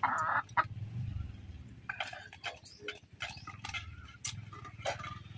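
Scattered sharp clicks and taps of two people eating rice by hand from steel plates, over a low steady hum. A short animal call opens it, the loudest sound.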